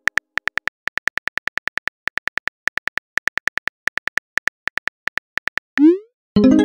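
Simulated phone-keyboard key clicks in quick, even runs as a text message is typed, then a short rising swoosh as the message is sent. A brief pitched musical tone starts near the end.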